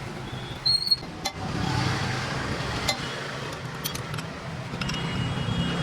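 A few sharp metallic clinks, like tools and parts being handled, over a steady low hum of road traffic.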